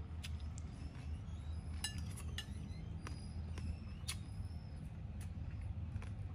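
A metal spoon clinking against a ceramic plate while eating, a dozen or so short, scattered clinks, some with a brief ring, over a steady low hum.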